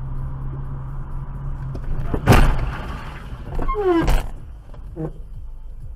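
Car cabin driving noise picked up by a dash camera: a steady low engine and road hum. Two loud sharp thumps come about two seconds in and again about four seconds in, the second with a short falling tone.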